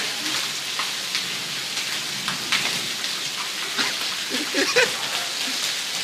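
Heavy rain pouring onto wet, flooded paving: a steady hiss of falling rain with scattered splashes.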